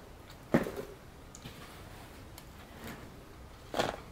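Tableware being handled on a table: a single sharp knock about half a second in, and a short clatter near the end as a plate with a sandwich is set down.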